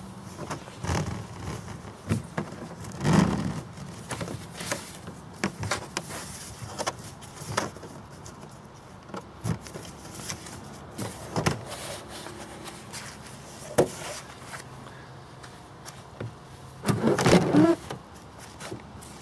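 Bola Professional electric two-wheel cricket bowling machine running, its motors giving a steady low hum, with irregular knocks and clatter and two louder rough bursts, one about three seconds in and one near the end.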